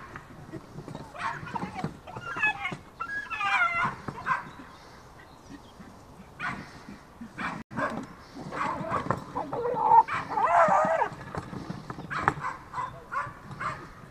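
A jagdterrier and a fox fighting inside a wooden artificial fox earth: high yelping cries that bend in pitch, in two bouts, one about two seconds in and a longer one past the middle, among scattered short knocks.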